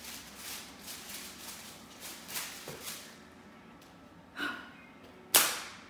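A woman breathing hard, quick airy breaths about two a second, with the rustle of clothing as she pulls on a shirt. There is a short voiced sound about four seconds in and a loud, sharp exhale near the end.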